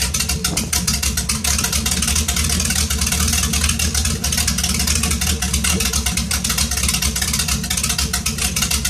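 MerCruiser 350 Magnum V8 in a 1994 Scarab sterndrive boat idling steadily while warming up, run on a garden hose to the drive, with a rapid, even beat from the exhaust.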